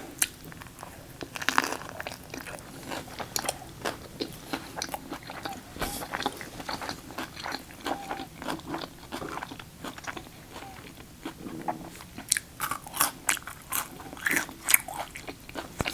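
Close-miked chewing of a mouthful of chicken Caesar wrap, the crisp lettuce crunching with many small mouth clicks throughout, busiest near the end.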